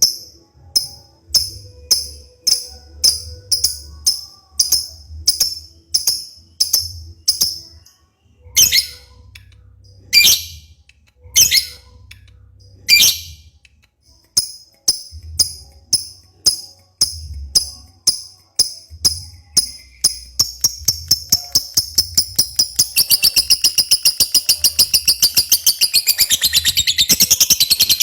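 Lovebird singing: sharp, high chirps about once a second, with a few longer harsh calls midway. The chirps then speed up into a fast, continuous trill over the last several seconds. This is the long 'ngekek' trill prized in a gacor, 'konslet' lovebird.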